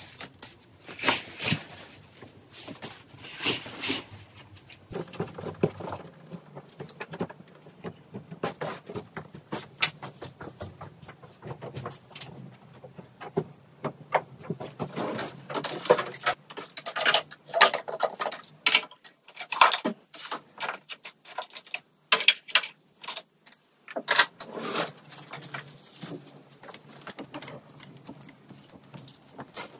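Irregular clicks, taps and light knocks of household objects being handled and set down, with soft rustling between them.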